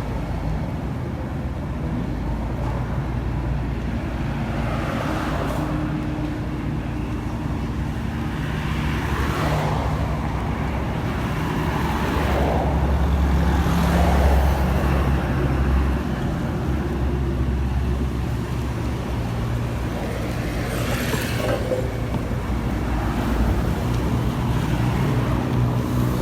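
Road traffic: a steady low engine hum with vehicles passing several times, the loudest pass about halfway through.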